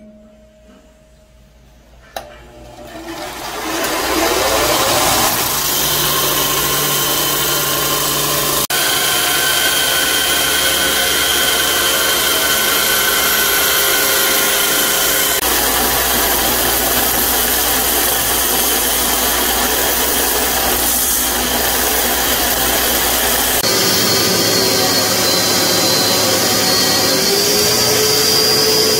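Electric belt grinder switched on about two seconds in, its motor winding up in pitch over a second or two, then running steadily while the abrasive belt grinds a steel knife blank forged from a drill bit. The tone changes abruptly a few times.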